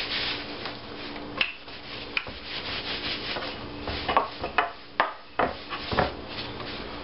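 Wooden rolling pin rolling out pizza dough on a floured wooden board: a rubbing sound of wood and dough, with several sharp knocks of the pin on the board.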